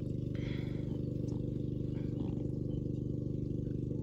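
A steady low drone of a running motor, even in pitch throughout, with a brief higher sound about half a second in.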